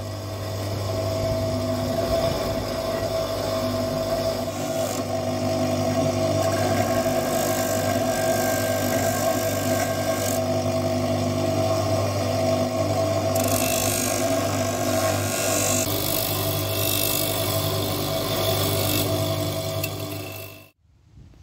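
Bench grinder running with a polishing wheel: a steady motor hum, with the hiss of the old pickaxe's steel head rubbing on the spinning wheel swelling and easing as it is pressed on and moved about. It cuts off suddenly near the end.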